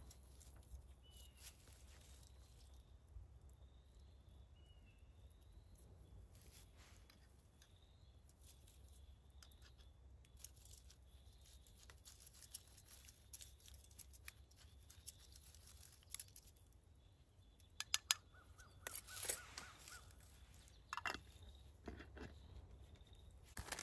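Quiet outdoor ambience with scattered small clicks and rustles of hands handling gear, louder and denser about three quarters of the way through. Faint short bird chirps recur in the background.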